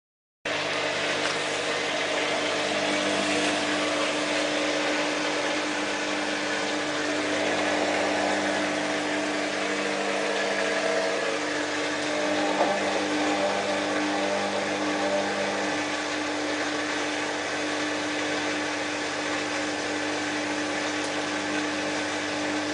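Whirlpool AWM4066 washing machine running mid-programme: a steady mechanical hum with a few constant tones over a wash of noise. It starts abruptly about half a second in.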